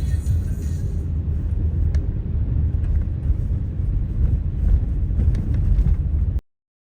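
A loud, steady low rumble with no clear tone, ending abruptly near the end.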